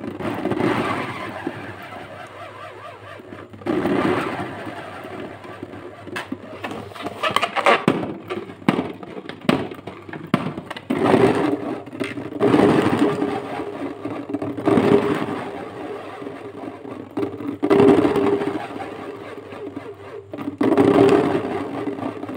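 Rubber balloon being handled and squeezed, giving squeaking, rubbing and crackling bursts every few seconds.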